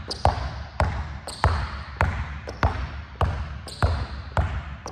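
Basketball dribbled hard on an indoor court floor in a steady, quick rhythm, a bounce about every half second with lighter taps between. Each bounce rings briefly in the hall.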